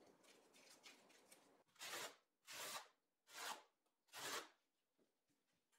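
Four faint rasping scrapes, a little under a second apart: stone ledger tile being pressed and worked into thinset mortar on the wall.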